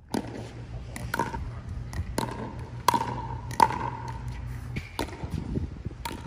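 Pickleball rally: paddles striking the hollow plastic ball in sharp pops, about one a second, each with a short ringing tone. A low steady hum runs underneath.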